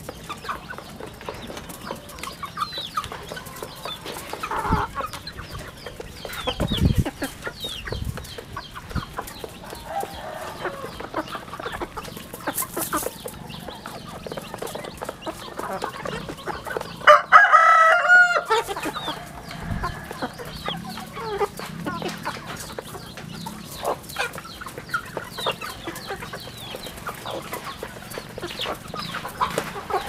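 A flock of young chickens clucking and calling while they peck at feed, with light pecking clicks throughout. Just past halfway, one louder, drawn-out call lasts about a second and a half, the crow of a young cockerel.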